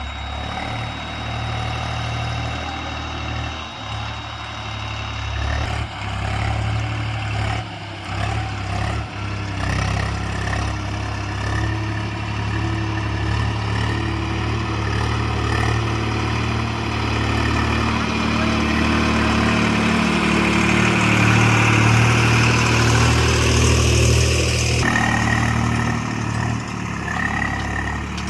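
Heavy diesel engine running steadily with a deep hum, growing louder for a few seconds past the middle before the sound changes abruptly.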